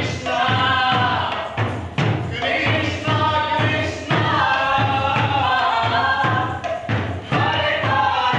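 Music: several voices singing over a steady low drum beat, about three beats a second.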